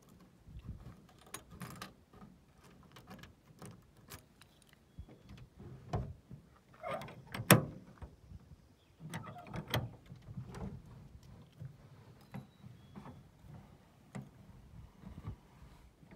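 Key being turned in the chrome outside hatch-window handle lock of a 1953 DeSoto station wagon, with scattered small metallic clicks and rattles from the key and handle. One sharp click about seven and a half seconds in is the loudest.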